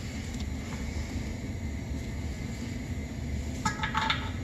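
Steady low background hum. About three and a half seconds in come a few light clicks and rattles as the solenoid head of an electronic compressor drain valve and its cord are picked up and handled.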